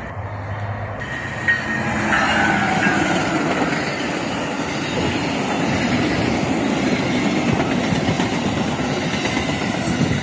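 Amtrak passenger train passing close by at speed. The Siemens Charger diesel locomotive goes by about two seconds in, its pitch falling, then the passenger cars follow in a steady rumble with wheel clickety-clack on the rails.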